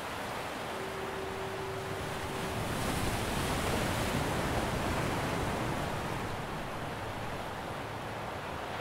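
Sea waves surging and washing on the shore, the rush building to a peak midway and then easing off.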